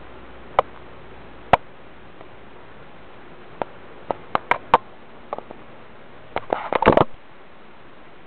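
Scattered sharp clicks and light rattles on a pet rat's wire cage as the rat moves about it, with a quick, louder flurry of clicks about six and a half seconds in.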